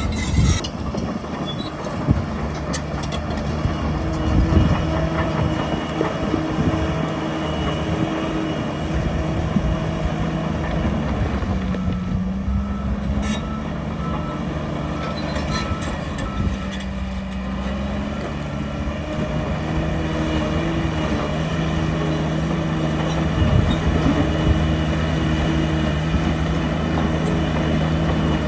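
Heavy diesel earthmoving machinery running, its engine note rising and falling, with scattered clanks of metal and rock. A reversing alarm beeps faintly at times.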